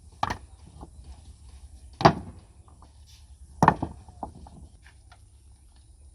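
Three loud, sharp knocks, about a second and a half apart, with a few fainter clicks between them, over a low steady rumble.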